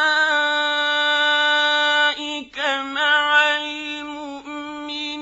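Male Qur'an reciter's voice in a long, melodic tajwid-style recitation: one steady held note for about two seconds, a brief break, then another long note with small ornamental turns in pitch.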